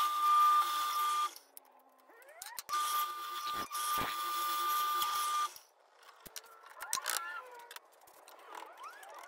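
Drill press running a hole saw through a wooden board, with a steady whine. It stops about a second in, spins back up with a rising pitch, runs steadily again, then stops a little over halfway through. The rest is quieter, with scattered light clicks.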